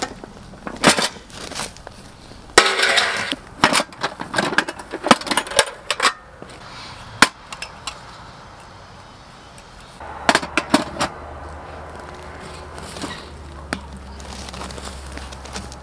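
Knocks, clatter and rustling of camping gear being handled on dry grass: a metal toolbox set down and opened, tools and gloves picked up. The clatter is busiest in the first half, with more scattered knocks and a low steady hum from about two-thirds of the way in.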